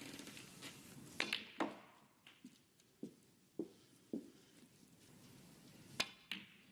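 Snooker balls clicking: sharp cue-on-ball and ball-on-ball strikes about a second in, then a few soft footsteps on the carpet around the table. Near the end comes another sharp click of the cue tip striking the cue ball, followed by a lighter ball contact.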